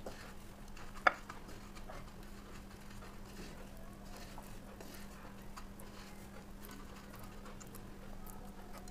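Faint crackling of dry breadcrumbs as a hand rolls and presses a croquette ball in them on a plate, with one sharp click about a second in.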